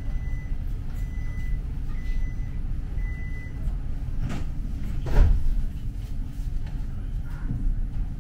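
Inside a tram: a steady low rumble, with four short high beeps about a second apart in the first four seconds, as from the tram's door warning signal. Two thumps follow, the louder one a little after five seconds in.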